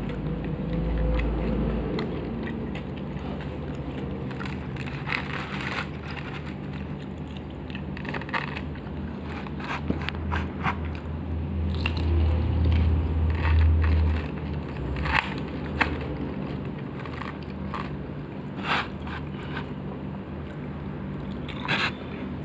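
Close-up eating of crispy fried chicken by hand: repeated crunching bites and chewing of the crisp coating, in short irregular snaps, over a steady low hum. A louder low rumble swells for a few seconds about halfway through.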